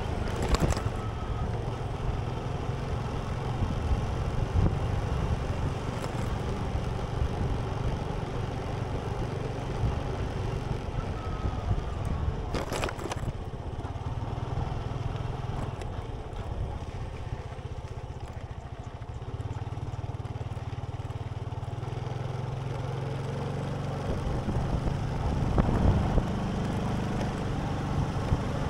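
Engine and road noise of a moving road vehicle, a steady low rumble. A couple of short sharp noises stand out, one just after the start and one about thirteen seconds in, and the engine note shifts about twenty seconds in.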